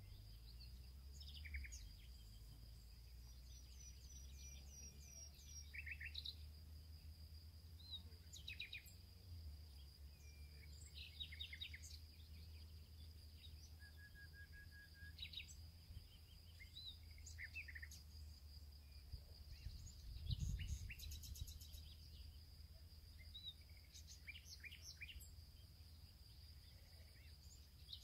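Faint small-bird chirps and calls in short high notes, scattered throughout, over a steady thin high whine and a low rumble. A brief low thump comes about twenty seconds in.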